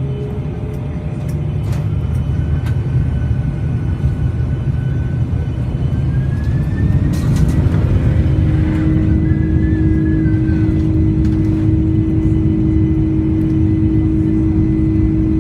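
Boeing 747-400's four turbofan engines on the takeoff run: a heavy rumble that grows louder over the first several seconds, with a steady engine tone coming in about halfway and holding.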